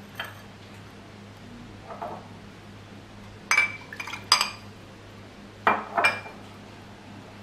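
Sharp metallic clinks of kitchen utensils knocking on steel, with a short ring after each: a cluster of three about halfway through and two more near the end, over a low steady hum. The blender motor is not running.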